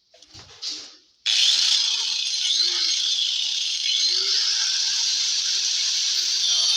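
A handheld electric sander-grinder starts up suddenly about a second in and runs steadily, grinding into the wooden wall of a subwoofer box to cut out an opening.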